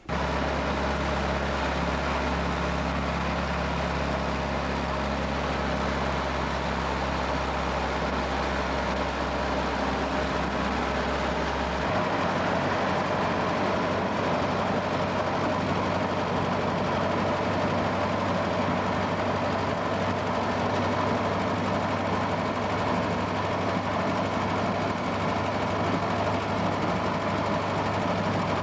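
Antique car driving at road speed, heard from inside its cabin: a steady engine drone under road and wind noise. The low drone changes about twelve seconds in.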